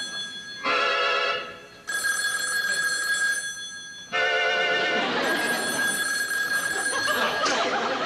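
Bell of a desk telephone ringing in bursts of about two seconds with roughly a second's pause between them, two full rings after the tail of an earlier one. Short high voice sounds come between the rings, and audience laughter builds under the last ring.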